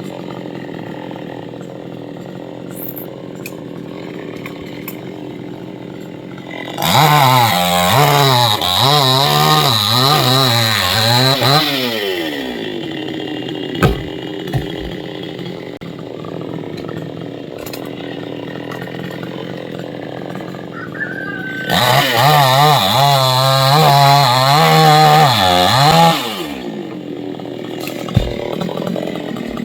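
Chainsaw running at idle, then revved up to full throttle twice, for about five seconds and then about four seconds, its pitch wavering while at speed before dropping back to idle. A sharp click comes between the two runs.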